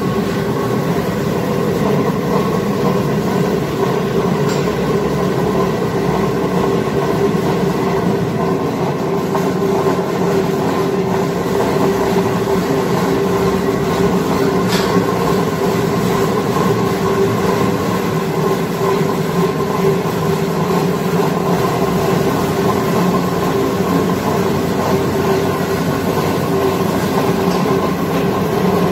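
Commercial tilting wet grinder running: the motor's steady hum under the continuous rumble of the grinding stones turning in the drum.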